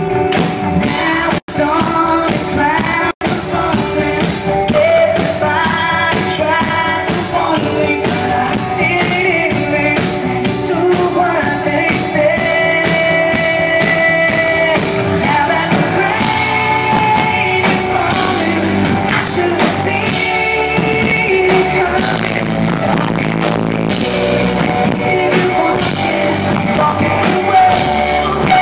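Pop-rock band playing live: drums keep a steady beat under guitars and singing. The sound cuts out completely for an instant twice, about one and a half and three seconds in.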